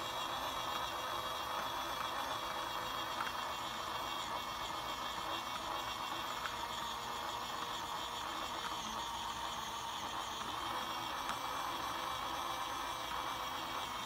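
Mini beauty-sponge washing machine running on two AA batteries: its small electric motor runs steadily, turning a makeup sponge in soapy water in its drum.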